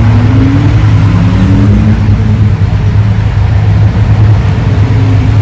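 Ford GT's twin-turbo V6 accelerating down the road, its engine note rising through the first couple of seconds over a steady low drone.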